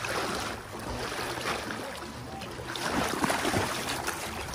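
River current washing around a landing net held in the water, with a hooked silver salmon thrashing and splashing at the surface during the last second or so.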